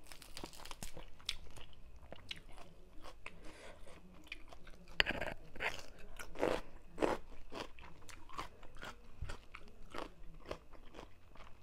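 Close-up chewing of a mouthful of spicy papaya salad wrapped in fresh lettuce, with irregular crisp crunches, loudest about halfway through.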